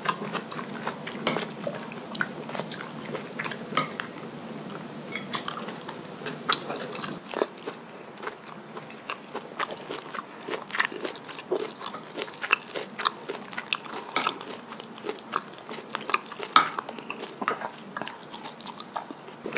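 Wooden spoon mixing and scooping sauced rice with cockles on a ceramic plate: wet, sticky squishing with many small irregular clicks.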